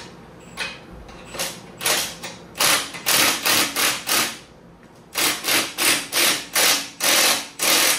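Ratchet wrench being cranked to tighten a 19 mm Nylock nut, a quick rattle of clicks on each back-swing. The strokes come in two runs of about three a second, with a short pause between them.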